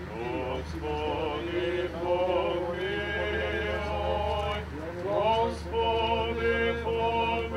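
Serbian Orthodox priests chanting a memorial service (pomen) in male voices. The chant moves in long held phrases, with a short break just past the middle before a new phrase rises.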